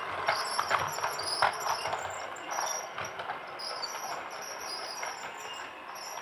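Toy train running, its mechanism whirring with irregular clicking and clattering, busier in the first couple of seconds.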